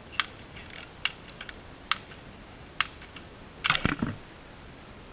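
A series of sharp mechanical clicks, about one a second, four in all, then a brief louder clatter a little before the end.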